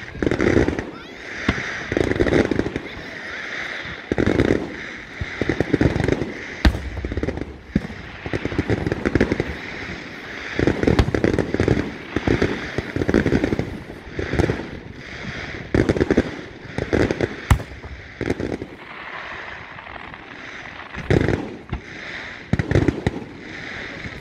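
Aerial fireworks going off: a run of booms at irregular intervals, a second or two apart, one of them a sharper crack about a third of the way in.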